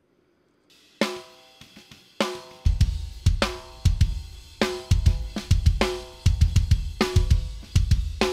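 Playback of raw, live-recorded metal drum tracks. After about a second of silence, a ringing snare hit comes about every 1.2 seconds. Heavy kick drum hits join a couple of seconds in and fill the gaps between the snare hits.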